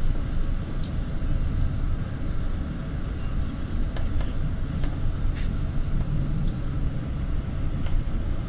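Steady low rumble of a moving road vehicle, heard from on board, with a few light clicks scattered through it.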